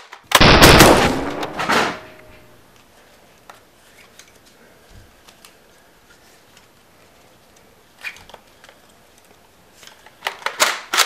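A loud gunshot-like bang about half a second in, dying away over a second and a half. Then come quiet clicks and rattles of a plastic Nerf blaster being handled and loaded, and a quick burst of sharp cracks near the end.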